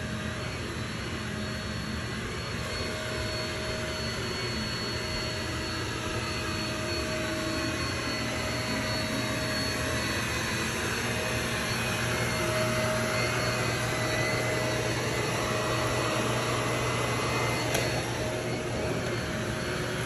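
Upright bagless vacuum cleaner running on carpet: a steady motor hum with a whine, growing gradually louder as it is pushed along.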